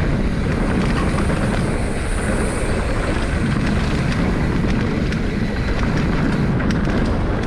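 A Giant Trance X 29 full-suspension mountain bike descending a dirt trail: a steady rush of wind on the microphone over the rumble of tyres on the ground and the rattle of the bike, with a few sharp clicks near the end.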